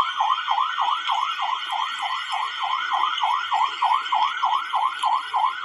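Electronic siren warbling fast, its pitch sweeping up and down about three times a second without a break.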